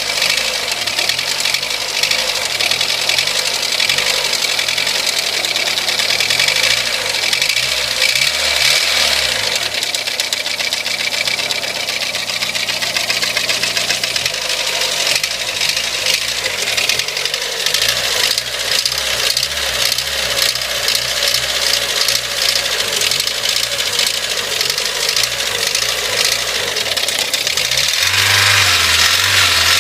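Honda D16A four-cylinder engine running with a loud, rapid knocking from the cylinder head, like a machine gun chattering, close to the microphone; the engine speed shifts a few times and rises briefly near the end. The knock is there cold and hot and worse under load, and the valve clearances have been checked and found normal, so its cause is unknown.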